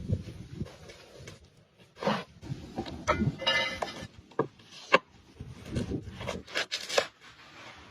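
Irregular knocks, rubs and scrapes, with a single sharp knock about five seconds in that is the loudest sound.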